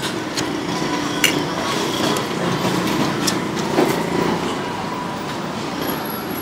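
Street-stall background of traffic and motor noise, with a few sharp clinks of a metal fork against the plate.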